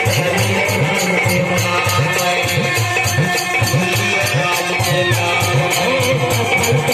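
Live folk music: a hand drum and jingling, rattling percussion keep a quick steady beat under held melody notes.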